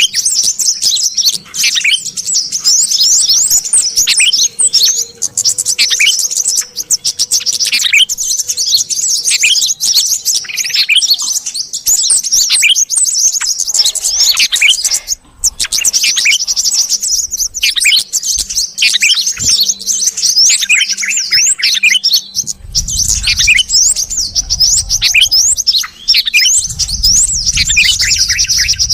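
Dense, continuous chirping and chattering of bulbuls, a lure-call mix of yellow-vented bulbul (trucuk) and sooty-headed bulbul (kutilang) calls played to draw small birds in. Rapid high twitters and trills overlap without a pause. A low rumble comes in twice in the last seconds.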